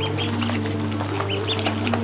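Ducklings peeping: a few short, high chirps scattered through the moment, over soft background music with held notes.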